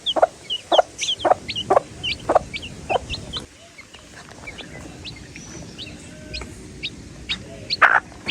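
Baby chicks peeping: many short, high cheeps overlapping. A lower, louder clucking note repeats about twice a second through the first three seconds or so, then stops, and the peeps thin out. One louder call comes near the end.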